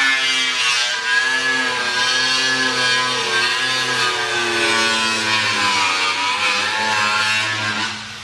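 Angle grinder cutting through a plastic body panel, its motor whine wavering and dipping in pitch as it loads up in the cut. The whine cuts off near the end.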